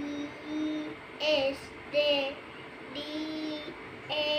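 A young child's voice spelling a word letter by letter in a drawn-out, sing-song chant, each letter held and separated by a short pause.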